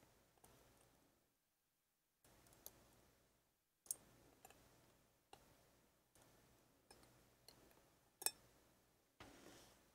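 Faint small metallic clicks of tweezers working at the brass plug and pins of an American 1100 padlock, with two sharper clicks about four and eight seconds in.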